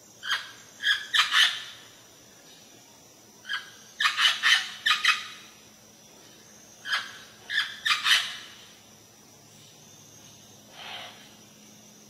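Amazon parrot giving short, harsh squawking calls in quick bursts of two to five, with pauses of a second or two between bursts, and one fainter call near the end.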